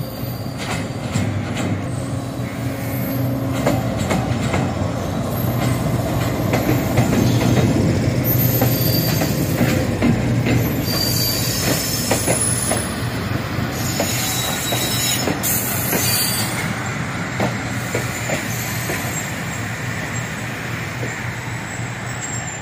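Pakistan Railways passenger train rolling along a station platform: steady low rumble, steel wheels clacking over rail joints, and high wheel squeal that comes and goes, strongest in the middle.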